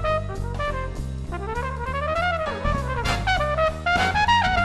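Background music: a jazz tune with a brass lead over a stepping bass line. The lead slides up and back down about two seconds in.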